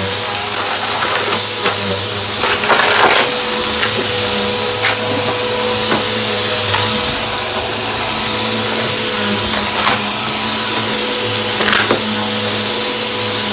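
Vacuum cleaner running steadily, with scattered crackles and clicks as crunchy debris is sucked up.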